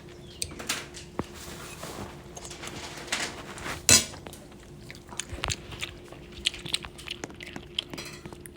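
Irregular small clicks and knocks of objects being handled, with one sharper, louder clack about four seconds in, over a faint steady hum.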